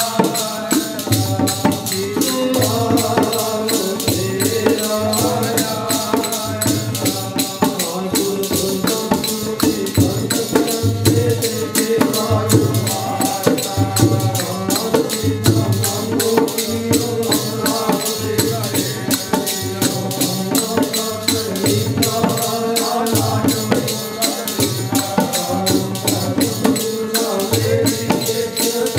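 Kirtan ensemble playing: harmonium melody over a dholak beat with low drum strokes about once a second, and a dense, fast, steady rattle from hand percussion.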